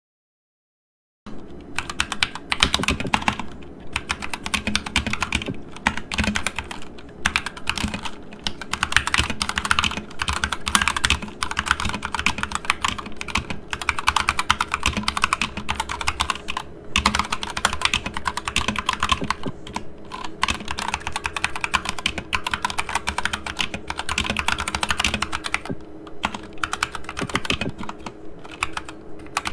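Typing on an Akko 3068 Silent 60% mechanical keyboard with Gateron Pink silent switches: rapid, continuous, muted key presses, starting about a second in.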